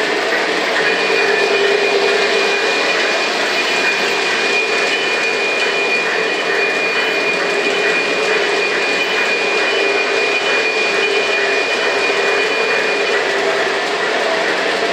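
Lionel O gauge model trains running on the layout: a steady whirring rumble of electric motors and metal wheels on track, with a thin high whine held from about a second in until near the end.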